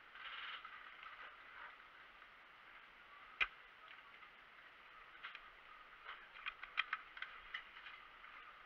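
Airsoft gun clicks: one sharp, loud clack about three and a half seconds in, then a quick, uneven run of about half a dozen lighter clicks near the end.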